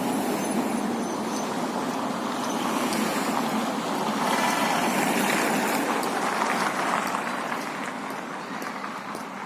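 Road traffic, with one vehicle passing and swelling through the middle. About halfway through, a great spotted woodpecker's short drumroll on the hollow metal lamppost rings out over it, followed by a few faint single taps near the end.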